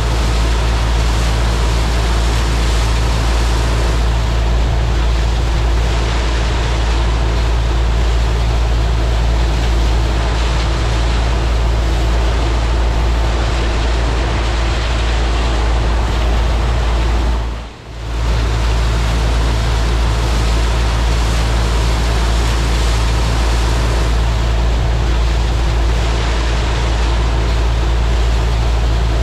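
New Holland TR99 combine harvester running steadily under load while harvesting soybeans, with a deep even engine drone beneath a broad rushing of threshing and separating machinery. The sound drops out briefly about two-thirds of the way through, then returns unchanged.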